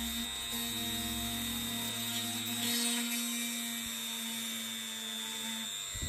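A handheld rotary tool with a grinding-stone bit running at high speed, grinding a groove into a thin plastic model kit part with a steady high whine. Background music plays underneath.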